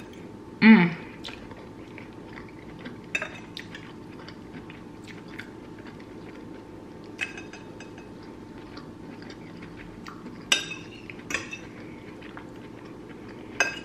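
Metal fork clinking against a ceramic bowl now and then, about five sharp clicks spread out, with chewing, over a steady low hum. A brief vocal sound comes about a second in.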